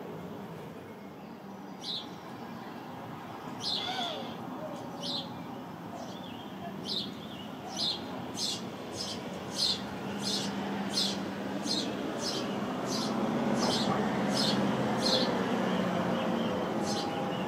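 House sparrows chirping at a nest box: short single chirps, a few at first, then coming quickly one after another in the middle of the stretch. Beneath them runs a steady low rumble that grows louder near the end.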